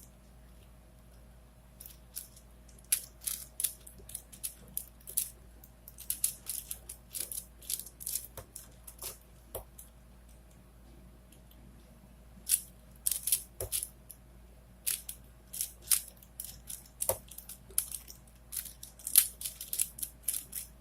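4x4x4 Rubik's cube (Rubik's Revenge) being turned by hand: quick, irregular runs of plastic clicks as its layers are twisted, with a pause of a couple of seconds about halfway through.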